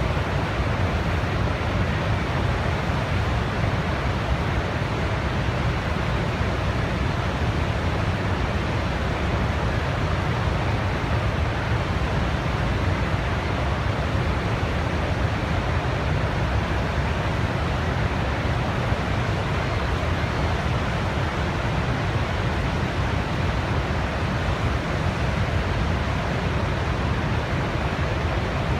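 A steady, unchanging rushing noise, heaviest in the low end, with no separate sounds standing out.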